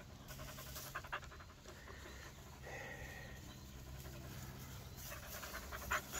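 German Shepherd puppy panting close up: a run of quick, short breaths, louder near the end.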